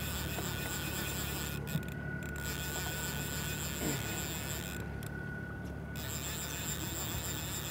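Yamaha outboard motor running steadily at trolling speed, a constant low hum under an even wash of noise.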